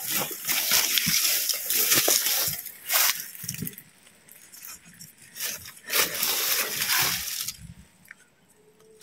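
Rustling and crackling of dry leaves and brush in uneven bursts, with two short quiet pauses.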